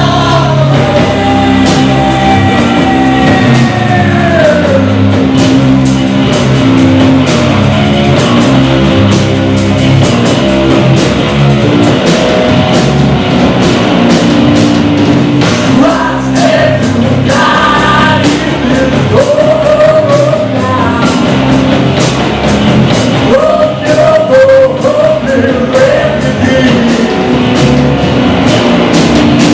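Rock band playing live: a singer over electric guitar, bass guitar and drum kit. A long held vocal note slides downward a few seconds in, and the singing comes back in short phrases later on.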